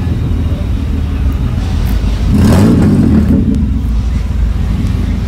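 Cars rolling slowly past with a steady low engine rumble. About two and a half seconds in, one engine revs up as a car pulls past close by, then settles back under a second later.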